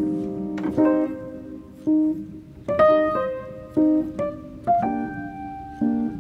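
Background piano music: a slow melody of single struck notes and chords, about one a second, each fading after it is struck.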